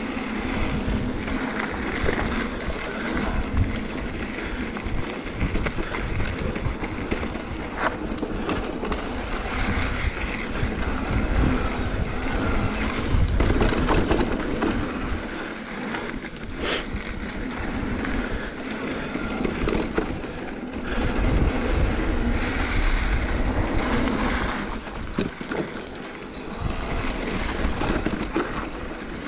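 Wind buffeting the microphone over the tyre and trail noise of an electric mountain bike rolling fast down a dirt singletrack, with scattered clicks and knocks from the bike over bumps and one sharp knock about seventeen seconds in.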